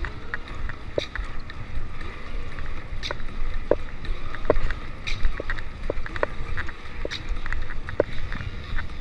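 Mountain bike ridden over a dirt singletrack trail: steady wind rumble on the microphone with irregular clicks and rattles from the bike, several a second.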